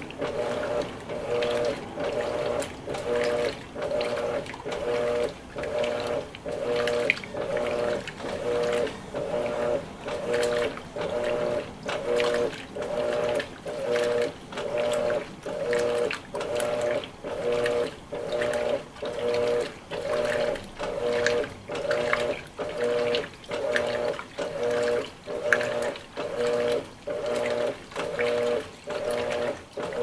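Electrolux LWI13 top-load washing machine agitating a load of towels in water. Its motor hums through each back-and-forth stroke of the agitator, about one stroke a second, with water sloshing in between. This is the long initial agitation of the wash cycle.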